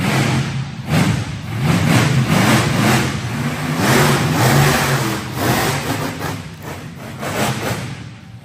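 Monster truck engine revving hard in repeated surges and easing off between them, heard inside a large metal-roofed arena. The engine settles lower near the end.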